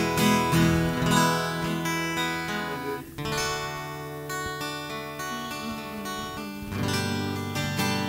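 Acoustic guitar strummed on its own, with a chord change about three seconds in and another near seven seconds.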